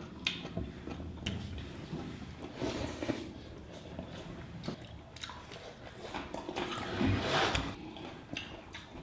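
Close-up eating sounds: chewing a mouthful of rice and curry, with small scattered clicks and smacks.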